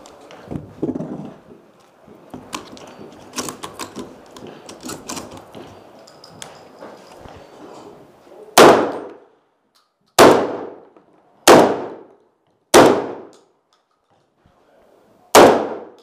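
Shotgun shells being loaded, with small clicks and rattles, then five shotgun shots inside a wooden building. The shots come about one and a half seconds apart, with a longer gap before the last, and each has a short ringing tail.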